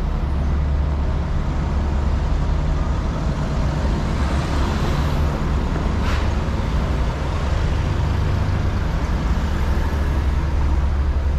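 Street traffic: a steady low engine rumble, with a vehicle swelling past around four to six seconds in and a short sharp hiss at the end of its pass.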